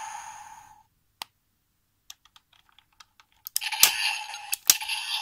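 Small plastic clicks from handling the DX Gashat Gear Dual toy, scattered and sparse, with a toy electronic sound fading out at the start and another starting up about three and a half seconds in, cut by two sharp clicks.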